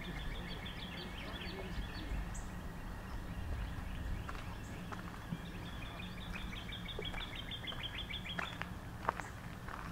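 A songbird singing a fast, even trill of repeated notes, which breaks off about two seconds in and comes back for about three seconds later on, over a steady low rumble. A few footsteps on the dirt-and-gravel path near the end.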